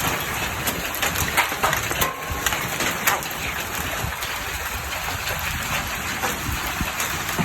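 Large hailstones pelting down in a dense, irregular patter of sharp hits, with a few louder cracks.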